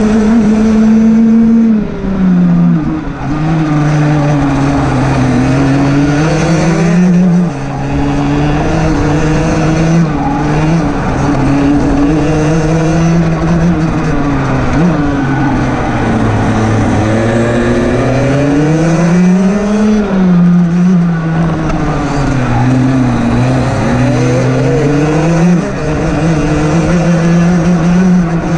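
Rotax DD2 kart's 125 cc two-stroke engine running at race pace. Its note climbs and falls through the laps, dropping sharply several times where the throttle is lifted for corners.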